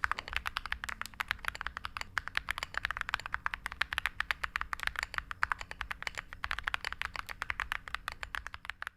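Fast, continuous typing on a Monka Alice67 Pro mechanical keyboard with Akko V3 Creamy Purple Pro tactile switches and Akko MOG-profile PBT keycaps: a steady stream of quick keystrokes, several a second.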